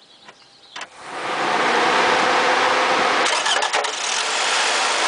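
Toyota 2AZ-FE 2.4-litre four-cylinder engine being started: a click, then the engine cranks, catches within about a second and settles into a steady run. A short cluster of sharp knocks comes about three and a half seconds in, in an engine whose owner is chasing a knock in the starter area.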